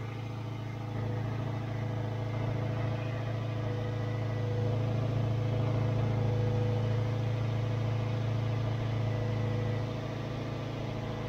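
Toyota MR2 Roadster's 1.8-litre four-cylinder engine idling steadily as it warms up after a cold start at about 2 °C. The idle gets slightly louder about a second in and drops back near the end.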